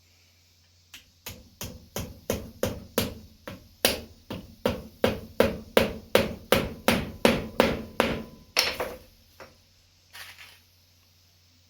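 Hammer tapping small nails through a loose rubber piece into a boot: about two dozen quick, even strikes, roughly three a second, for about eight seconds, then stopping.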